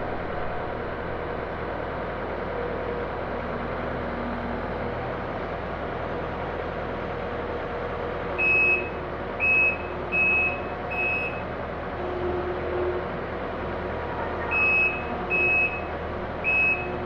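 Takeuchi TL12 tracked skid steer's diesel engine running steadily. Partway through, its reversing alarm sounds a run of four loud beeps, then pauses, then gives another run of four beeps near the end.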